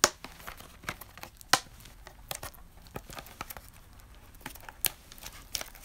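Plastic wrap on a trading-card box crinkling and tearing as it is picked open by hand, with scattered sharp clicks and crackles; the loudest snaps come at the start, about a second and a half in, and near the end.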